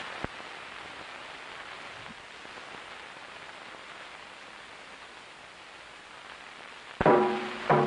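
Steady hiss of an old film soundtrack, with a single click just after the start. About seven seconds in, music cuts in with two loud, ringing drum strikes.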